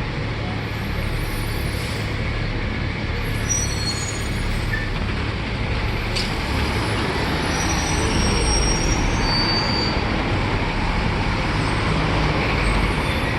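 Tour bus running through city traffic, heard from on board: a steady mix of engine rumble and road noise that grows a little louder in the second half.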